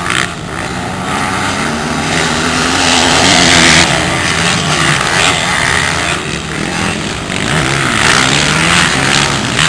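Motocross dirt bike engines running hard, their pitch rising and falling again and again as the riders work the throttle and shift through the turns.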